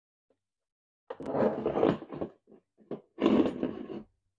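Rough scraping and rubbing handling noise as the threaded plastic retaining ring of a 12V USB charger socket is unscrewed and the plastic dash panel is turned over, in two bursts about a second long.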